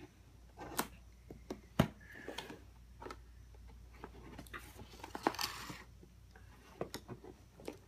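Scissors snipping packing tape on a cardboard toy box: scattered sharp clicks and snips with short bursts of rustling packaging.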